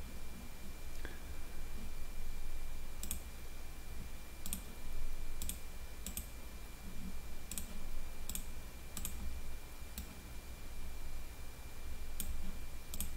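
Sharp clicks from operating a computer, about ten of them at irregular intervals, over a faint steady high-pitched whine.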